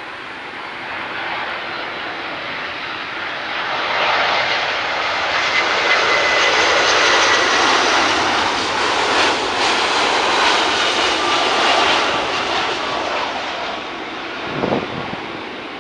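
Boeing 757-300 jet airliner flying past on its landing approach: the engine noise swells, is loudest for several seconds with a faint high whine on top, then fades as it moves away. A brief louder sound comes near the end.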